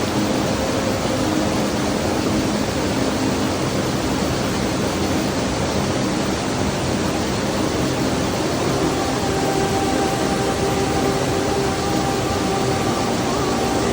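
Steady rushing of a canyon stream and waterfalls, an even unbroken noise. Faint steady tones join it about nine seconds in.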